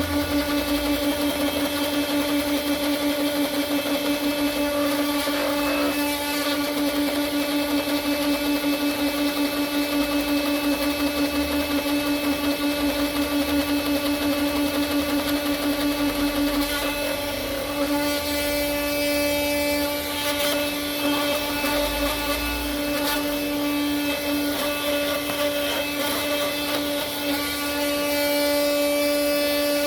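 Small 12 V car vacuum cleaner motor running steadily with a high, even whine, powered from a PC ATX power supply. The tone shifts slightly about two thirds of the way through.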